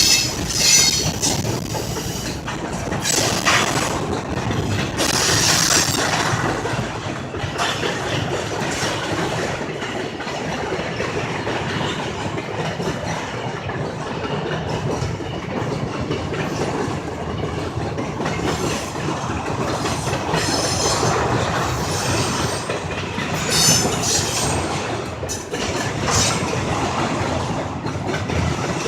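Freight train cars rolling past with a steady rumble and clickety-clack of wheels over rail joints. Short high-pitched wheel squeals break in several times, near the start, around the first few seconds and again past the middle.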